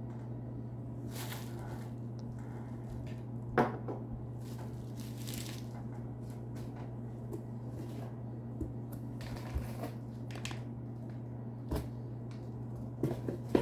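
Small objects being handled on a table: rustling hisses with scattered sharp clicks and taps, the loudest click about three and a half seconds in and a few more near the end. A steady low hum runs underneath.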